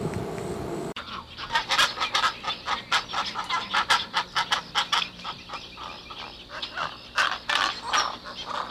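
Pelican chick calling: a rapid, irregular run of short, harsh calls that starts abruptly about a second in.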